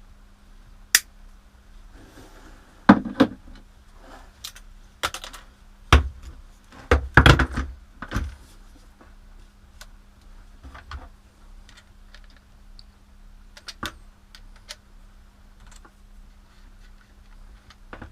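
Irregular clicks, taps and clatter of hard plastic and metal parts being handled: a rotary tool and its small accessories being picked up, fitted and set down, with a busier run of knocks in the middle. The tool's motor is not running.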